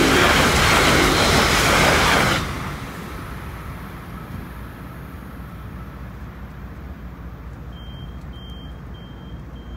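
Amtrak passenger train of Amfleet coaches rushing past at speed: a loud rush of wheels on rail and air that cuts off suddenly about two and a half seconds in as the last car goes by, leaving a low rumble. Near the end, faint short high-pitched beeps repeat a few times.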